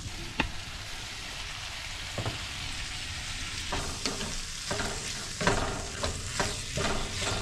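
Breakfast sausage, diced potatoes and peppers sizzling in a cast-iron skillet while a wooden spatula stirs and scrapes the pan. The scraping strokes come irregularly over a steady hiss, more often in the second half.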